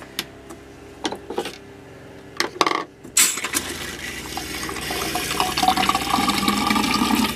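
A few clicks and knocks from the sink's faucet handles, then about three seconds in water starts running from the faucet into the plastic sink basin, growing louder as it flows.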